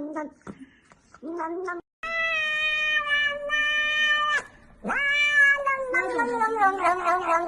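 Cat meowing: a short meow, then a long drawn-out meow of about two seconds, then another long meow that falls in pitch toward the end.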